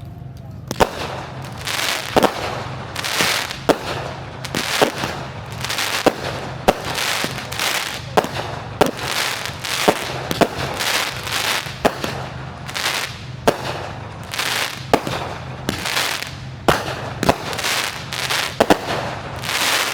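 Fireworks show: a rapid barrage of aerial shell bursts, sharp bangs coming about one to two a second, each trailing off in crackling hiss.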